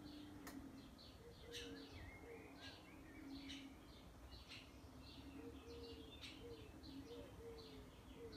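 Faint birdsong: many short, high chirps from small birds, over a faint steady low hum.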